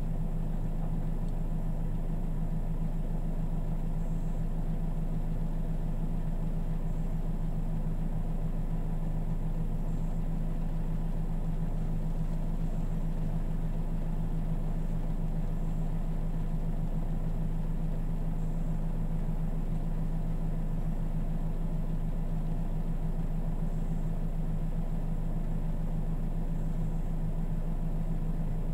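Mercedes CDI common-rail diesel engine idling steadily, heard from inside the car's cabin as a low, even hum.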